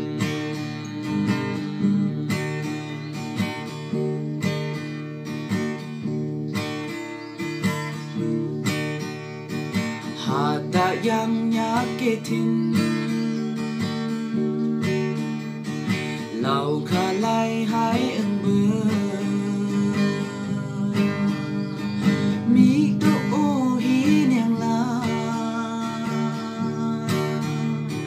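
Steel-string acoustic guitar strummed in a steady rhythm while a man sings a song over it, his voice coming and going between lines.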